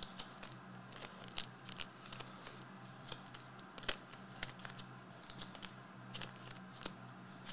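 Hockey trading cards being picked up and sorted by hand: faint, irregular clicks and rustles of card stock, over a steady low hum.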